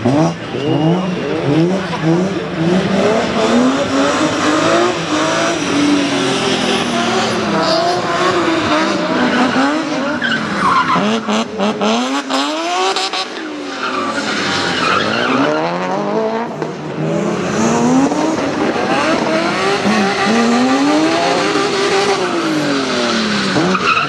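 BMW E36 coupé competition cars' engines revving hard, the pitch climbing and dropping over and over as the throttle is worked through the slalom, with tyres skidding on wet tarmac. There is a brief lull about halfway through.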